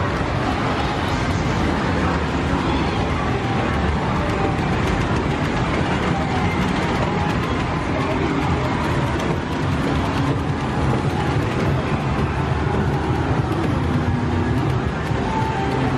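Loud arcade din: many game cabinets' music and sound effects overlapping in a steady wash, with voices mixed in.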